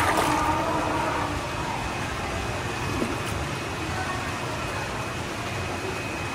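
Steady rushing background noise, with a pitched hooting tone fading out in the first second or so.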